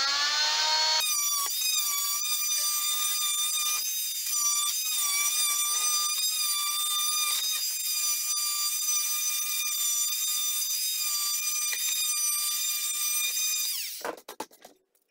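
Oscillating multi-tool (oscillating saw) cutting the ribs off a plastic bucket, running with a steady high whine. It spins up in the first second, then winds down and stops near the end.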